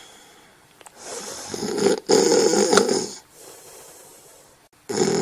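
Loud snoring: one long snore about a second in, briefly broken near the middle, a quieter breath, then the next snore starting near the end.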